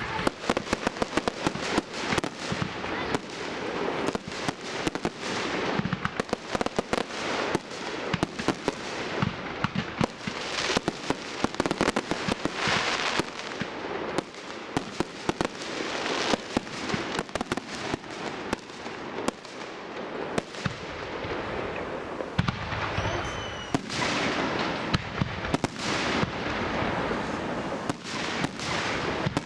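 Fireworks display: a rapid, continuous string of bangs and crackles from aerial shells bursting, with a short whistle about three quarters of the way through.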